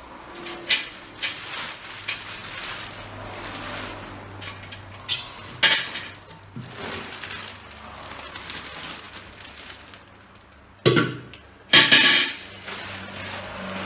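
Clinks and knocks of hard metal and plastic parts being handled, the sharpest clatter about two-thirds of the way through, over a low steady hum. These are plausibly milking machine parts being fitted together.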